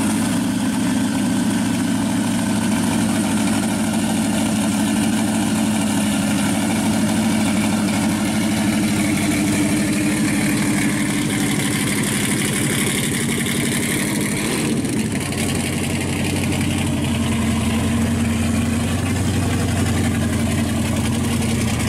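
Supercharged V8 in a 1971 Chevy Vega panel wagon idling steadily, freshly started. About 15 s in, the sound takes on more low rumble.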